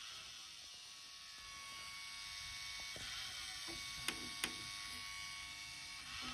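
Sony MXD-D40 CD/MiniDisc deck powered on with a faint, steady electrical whine, and a lower hum joining in about halfway through. Two sharp clicks of a front-panel button being pressed come about four seconds in.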